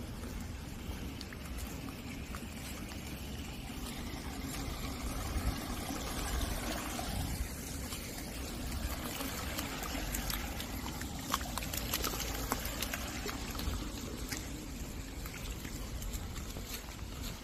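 Running water trickling steadily, with scattered light ticks over it.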